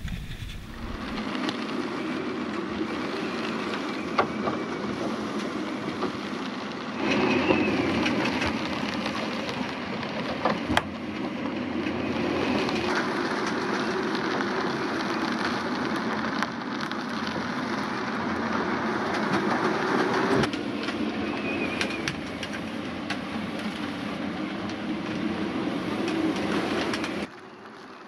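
Strong wind and rough sea from the deck of a sailing yacht in a storm, the wind buffeting the microphone, with a few sharp knocks. The sound shifts abruptly several times.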